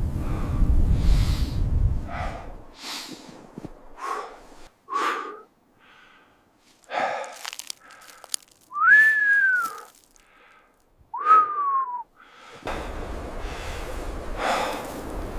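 Heavy, noisy breaths in a series of short strokes. In the middle come two whistled notes about two seconds apart, each rising and then falling. A low rumble sits under the start and returns near the end.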